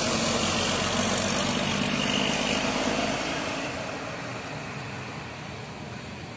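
Diesel engine of a Primajasa intercity coach running as it passes close by. It fades steadily over the last few seconds as the bus drives away.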